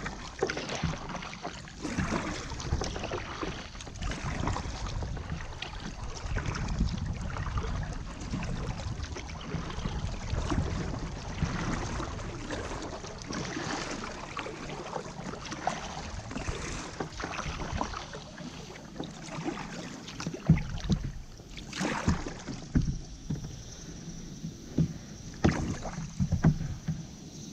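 Kayak paddling: the paddle dipping and splashing in the water stroke after stroke, every second or two, with water washing along the plastic hull. A few sharper knocks come in the last third.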